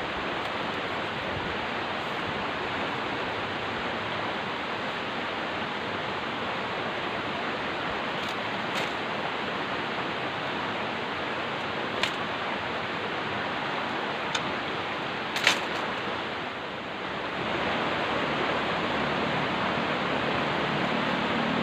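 Steady rush of flowing river water, with a few short sharp clicks, the loudest about fifteen seconds in.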